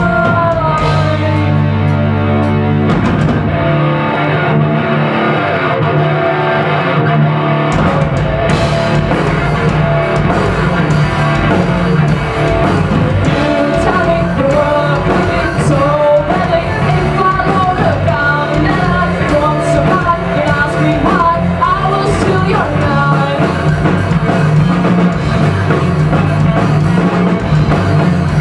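A rock band playing live: a woman singing over electric guitar and drum kit. About four seconds in, the drums drop out, leaving voice and guitar, then come back in about four seconds later.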